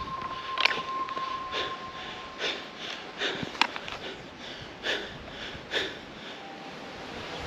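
A man breathing hard through his mouth, about one breath a second. A thin steady high tone runs under the first few seconds, and there is a sharp click about halfway through.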